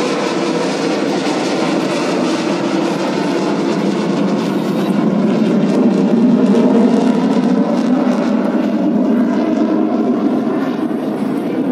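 Jet engine noise from fighter jets flying overhead: a loud, steady rushing roar that swells about halfway through and slowly eases as the jets draw away.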